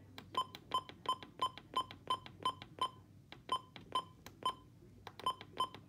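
Midland WR400 weather radio's button beeps: short, identical electronic beeps about three a second as the buttons are pressed repeatedly to step through the alarm time setting, in three runs with two short pauses.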